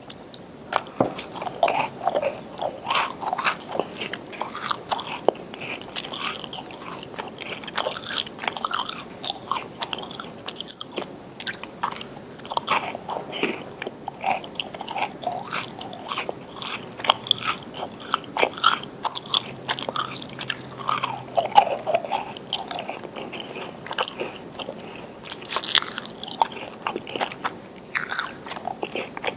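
A person biting and chewing chocolate chip cookies, with irregular crisp crunches.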